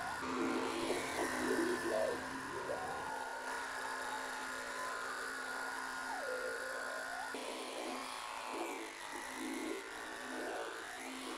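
Sound-designed buzzing drone for a cartoon fly: a steady electric-sounding buzz over a low hum and a higher held tone, with repeated swooping dips in pitch.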